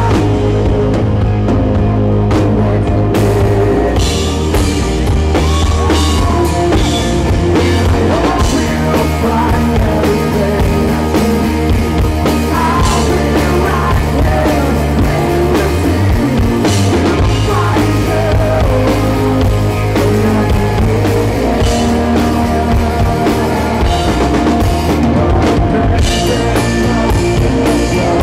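Live rock band playing loudly through a concert PA: drum kit, electric guitars and bass.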